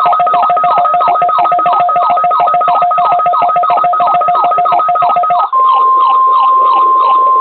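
Electronic alert tones over weather radio. First comes a pulsing two-pitch tone with a falling chirp repeating a little under three times a second. About five seconds in it switches abruptly to a single steady high tone, the NOAA Weather Radio warning alarm tone being tested.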